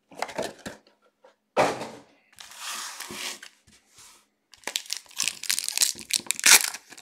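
Foil trading-card pack wrappers crinkling and tearing as packs are ripped open and the cards handled on a tabletop, in a string of short, irregular rustles and clicks that come thickest near the end.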